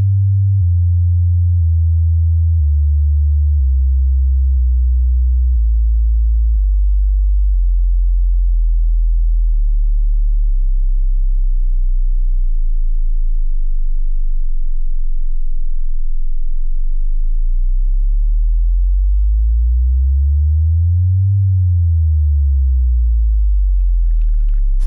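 Loud, deep electronic sine tone that slowly glides down in pitch over the first several seconds and then holds low. Later a second tone rises and falls back again over it, with a wavering beat where the two tones meet.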